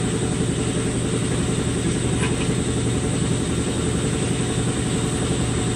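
A steady mechanical drone with a strong low hum, like running shop machinery, with one faint click about two seconds in.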